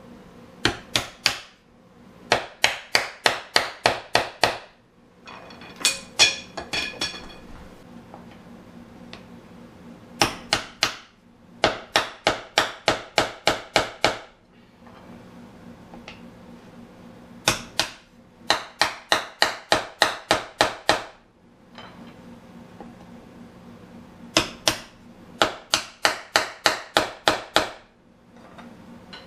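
A hammer drives hardwood Windsor-chair spindles into their glued holes in a wooden seat with runs of sharp blows, about four a second, in groups of roughly eight to ten with short pauses between. About six seconds in there is a brief ringing clatter.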